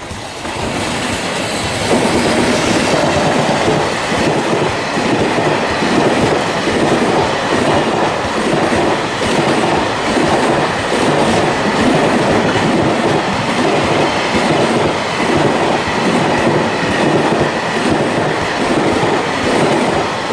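EF210 electric locomotive and its container wagons passing close by: a loud, steady rumble of steel wheels on rail with a rhythmic clickety-clack. It grows louder over the first two seconds as the train draws level, then keeps on evenly until it cuts off suddenly at the very end.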